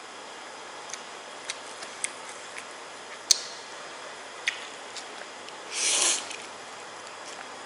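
Eating sounds of a person having spicy instant noodles: scattered sharp clicks of utensils against the noodle container, and one short, loud rushing sound about six seconds in.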